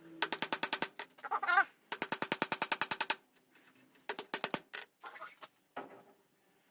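Hammer on an anvil forging a small knife blade from old file steel. The strikes come in quick runs of about a dozen a second with a metallic ring, three runs of about a second each with short pauses between.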